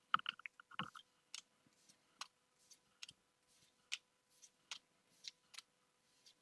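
Pokémon trading cards being flipped through one at a time, making faint sharp clicks and slides. There is a quick cluster of clicks about a second in, then single clicks roughly every half second.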